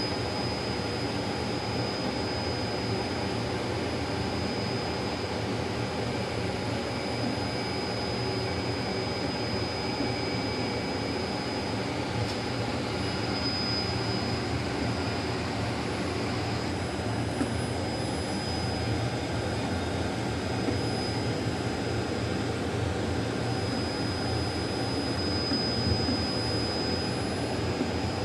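Laser printer running, a steady mechanical whir with a low hum and a thin, high, constant whine.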